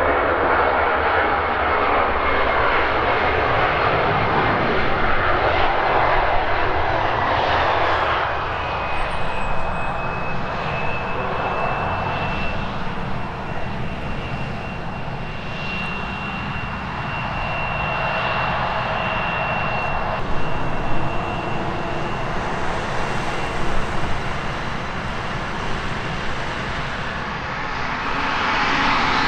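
Bombardier CRJ-900's twin rear-mounted GE CF34 turbofans running as the jet rolls out after landing and then taxis. A broad jet rush is loudest for the first eight seconds or so, then eases, with a steady high-pitched whine through the middle.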